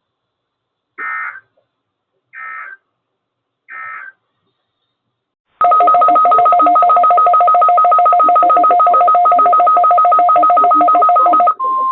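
Weather radio broadcast tones: three short bursts of SAME digital data about a second and a half apart, marking the end of the message. After a pause comes a loud, steady two-pitch touch-tone-like tone for about six seconds, which switches near the end to the single steady 1050 Hz warning alarm tone.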